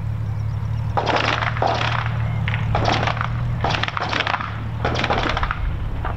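Supermarine Spitfire Mk IIa's Rolls-Royce Merlin V12 running at low taxi power: a steady low drone broken by about five bursts of crackling and popping.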